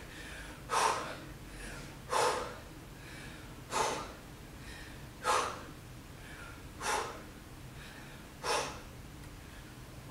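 A woman breathing hard through push-up reps: six short, sharp breaths out, one about every one and a half seconds, with fainter breaths in between.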